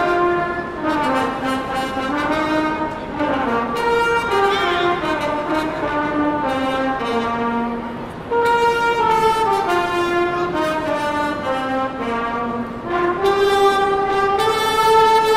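A trumpet ensemble playing a melody in harmony, several trumpets together. The tune steps downward, grows louder about halfway through, and ends on a long held chord.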